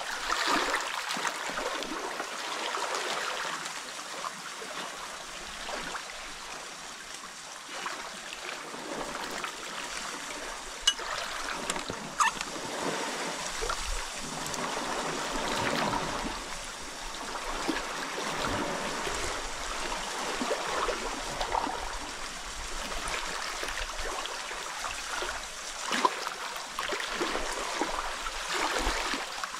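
Small sea waves washing over shoreline rocks and draining back off them: a steady splashing trickle that swells and ebbs, with a few brief sharp clicks, the loudest near the end.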